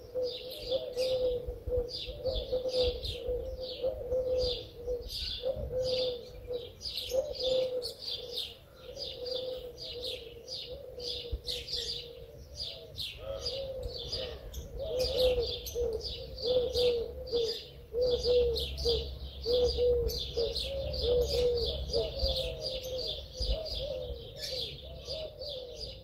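Small songbirds chirping rapidly and without a break, with a pigeon cooing over and over underneath.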